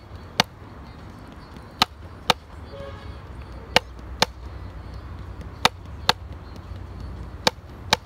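Wooden drumsticks striking a drum practice pad in slow full strokes raised high above the pad: sharp single hits in pairs about half a second apart, a pair roughly every two seconds.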